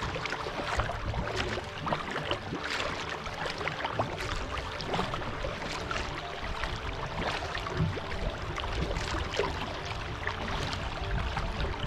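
Double-bladed kayak paddle dipping and pulling through choppy water in alternating strokes, with repeated splashes and water rushing and lapping along the kayak's hull.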